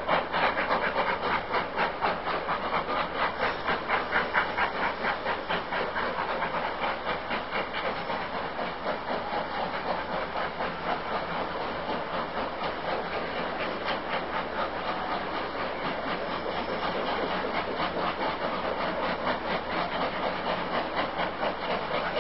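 Steam locomotives working a train, their exhaust chuffing in a fast, even rhythm with steady hiss, a little louder in the first few seconds.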